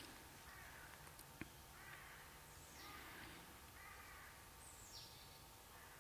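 Faint wild bird calls: repeated short harsh calls, and twice a thin high call sliding down in pitch. A single sharp click about a second and a half in.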